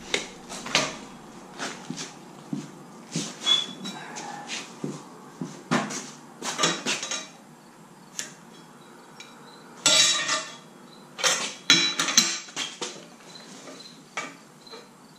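Aluminum brackets and the square-tube aluminum frame knocking and clinking together as the pieces are handled and held in place: irregular metal clanks, with a run of louder ones about two-thirds of the way through.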